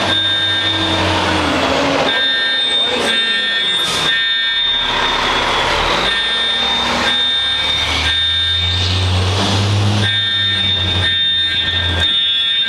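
Building fire alarm sounding on and on in steady high tones with short breaks, over a large diesel fire truck's engine running, heard most in the first couple of seconds and again in the last few seconds.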